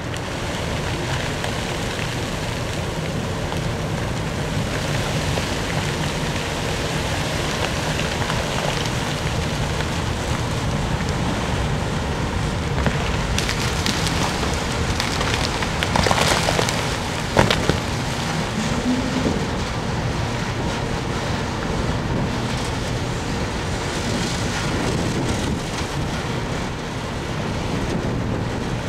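Wind rushing over the microphone above a steady low machinery hum. About sixteen seconds in there is a short, louder rattle, and a sharp knock follows a second later.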